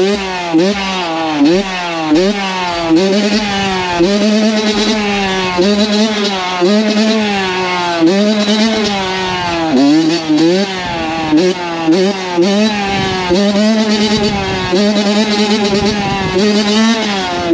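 Dirt bike engine revving over and over, its pitch sweeping up and dropping back a little more than once a second, as the throttle is worked while riding.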